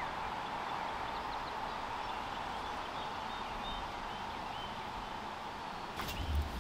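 Outdoor riverside ambience: a steady hiss with faint, short, falling bird chirps over it in the first few seconds. Near the end, a cluster of sharp clicks and low thumps from movement close to the microphone as the angler gets up by his rod.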